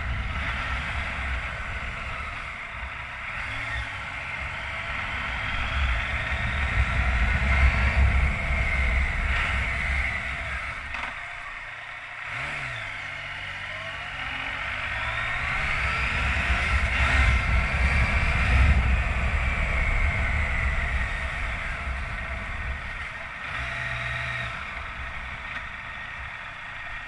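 Yamaha FJ-09 (Tracer 900) motorcycle's inline three-cylinder engine with stock exhaust, ridden on a test run. It pulls up through the revs and eases off twice, loudest about 8 and 18 seconds in, with a lull near the middle.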